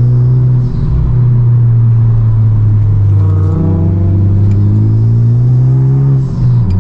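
Honda Civic Type R's turbocharged 2.0-litre four-cylinder heard from inside the cabin under steady light throttle. It makes a constant drone and eases off briefly about a second in and again near the end.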